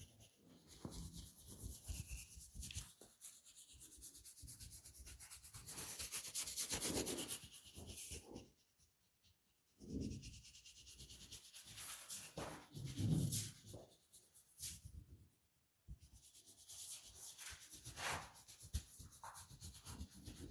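Hands rubbing and massaging skin, a close-up scraping rub in uneven strokes, with two short breaks.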